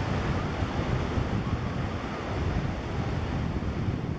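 Steady ocean surf with wind rumbling on the microphone.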